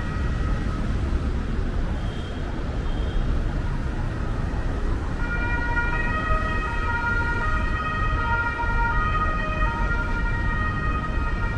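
Road traffic rumbling across a cobbled square with an emergency-vehicle siren sounding over it. The siren's held wailing tones are faint at first and grow louder from about five seconds in.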